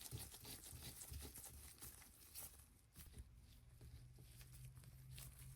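Near silence with faint scattered clicks and scraping as the parts of a dial indicator magnetic base are handled and its locking knob is twisted tight.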